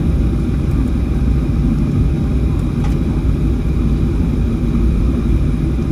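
Steady low rumble inside the cabin of a Boeing 737-700 rolling on the ground just after landing, its engines and wheels running as it slows and turns off toward the taxiway.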